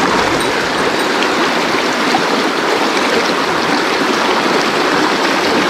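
Mountain stream rushing over rocks: a loud, steady, even water noise.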